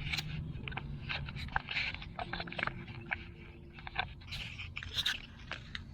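Irregular light scrapes, clicks and crunches, a few to several a second, over a faint low hum.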